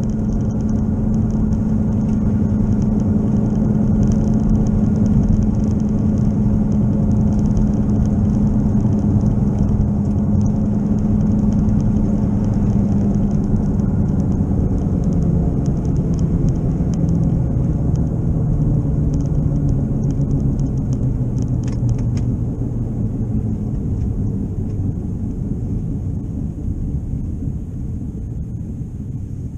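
Car cabin noise while driving: a steady low drone over road rumble that slides down in pitch and fades as the car slows toward the end. The owner takes the drone for a bad left wheel bearing.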